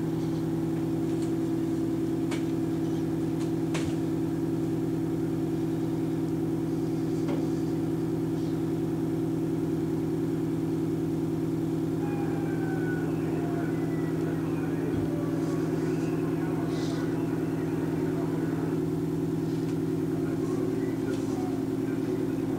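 Fire engine's diesel engine running steadily at an even pitch, with a few faint ticks and distant voices over it.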